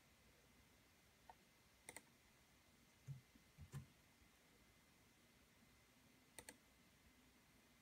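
Near silence with a few faint clicks and taps from a computer keyboard and mouse while a location is typed into a search box: a single click, a quick pair about two seconds in, two soft low taps a little later, and another quick pair about six and a half seconds in.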